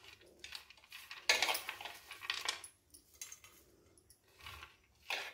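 Steel kitchenware clinking and rattling in a string of short clatters while a steel mixer-grinder jar is loaded with chutney ingredients. The loudest clatter comes about a second in.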